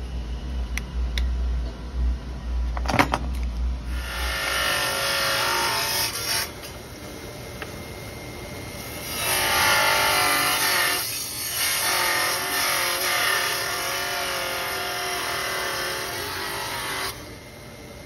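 Belt grinder running as a mammoth-tusk knife scale is pressed against the belt, a grinding noise that comes and goes with a wavering pitch as the piece is worked. It opens on a low machine hum with a few sharp knocks about three seconds in, and the grinding drops away about a second before the end.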